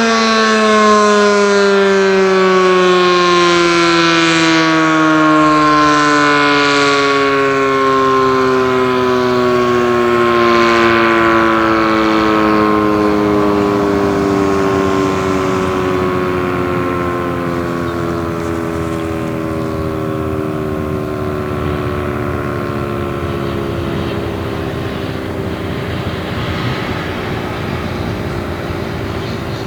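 ACA Banshee 10-horsepower outdoor warning siren winding down at the end of its test: one steady wail whose pitch slides slowly and continuously lower as it fades. Its upper notes swell and ebb every few seconds during the first half.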